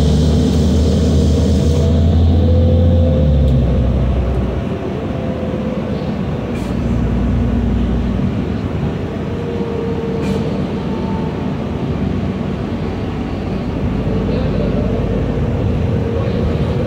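New Flyer D40LF diesel transit bus heard from inside the cabin while riding. A strong low engine drone eases off about four seconds in, followed by steady running and road noise with a faint whine.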